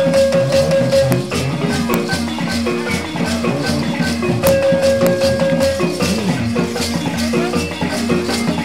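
Live traditional dance music: rhythmic rattles and drums with short repeating pitched notes, and a long held note that sounds twice, about a second each.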